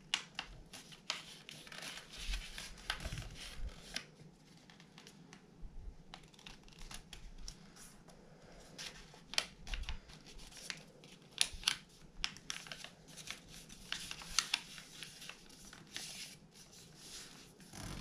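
A square sheet of paper being folded by hand into an origami flapping bird: irregular rustling and crinkling, with short crisp crackles as edges are lined up and creases pressed flat.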